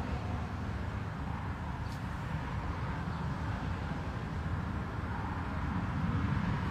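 Steady low vehicle rumble heard from inside a stopped car's cabin, with a faint tick about two seconds in.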